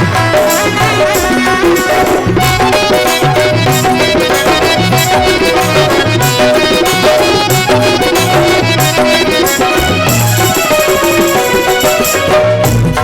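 Instrumental passage of a Rajasthani folk bhajan: melody instruments holding steady notes over an even hand-drum beat, with no singing.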